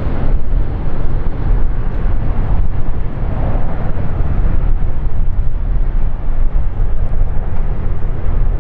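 Wind buffeting the microphone: a loud low rumble that flutters unevenly.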